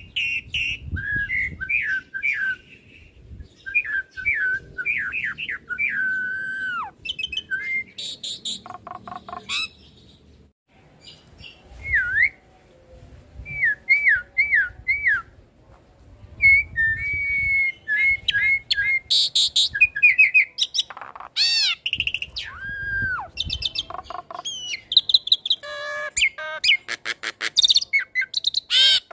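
Hybrid jalak, Asian pied starling crossed with Nias hill myna, singing a varied run of whistles, sliding notes and clicks in phrases, with a short pause near the middle.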